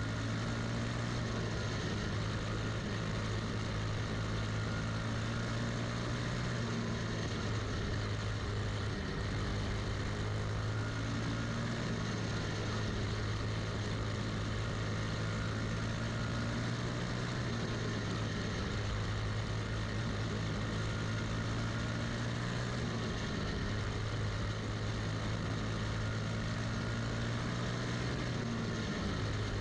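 Quarter midget's single-cylinder four-stroke Briggs & Stratton Animal racing engine running hard at high revs, heard onboard, its pitch dipping slightly a few times through the turns.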